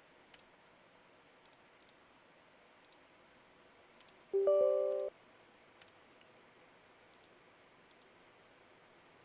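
Faint scattered clicks, and about four and a half seconds in a short electronic chime of a few stacked tones lasting under a second: a computer's system alert sound.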